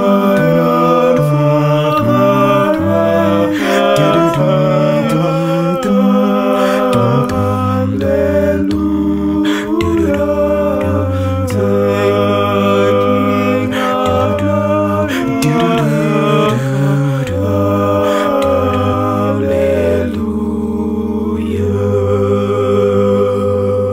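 Hymn music interlude between verses: several parts in harmony over a sustained bass line, chords changing every second or two, with no words sung.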